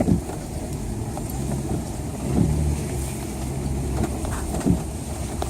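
Four-wheel-drive truck engine running steadily at low speed as the truck crawls along a rough trail.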